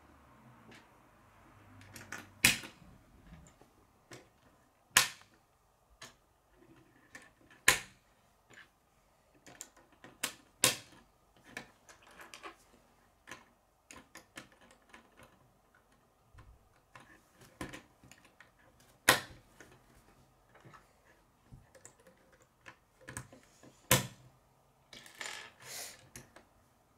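K'nex plastic rods and connectors being snapped together and handled: irregular sharp plastic clicks, with about half a dozen loud snaps a few seconds apart and softer ticks and rattles between them.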